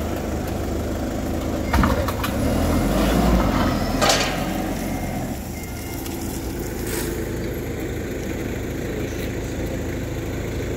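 Yale forklift engine running, louder for a few seconds and then settling back. Two sharp metal clunks, about two seconds apart, as a steel tipping skip bin is handled on the forks and set down on concrete.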